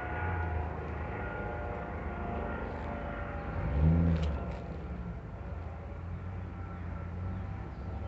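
A steady engine drone, with a brief louder low burst about four seconds in.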